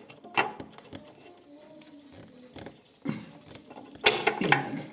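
Knocks and scraping from hands working a push-on starting relay off a refrigerator compressor's terminal pins, where it sits tight. There is a sharp knock about half a second in and a louder rough scraping stretch near the end.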